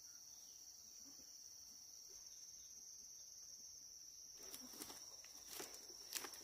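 Steady high-pitched insect drone throughout; from about four seconds in, a few footsteps in sandals on grass and dry leaves.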